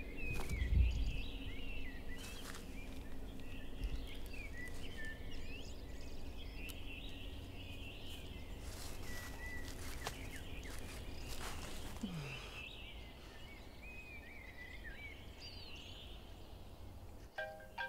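Small birds singing and chirping on and off over a steady low outdoor rumble, with one soft low thump about a second in.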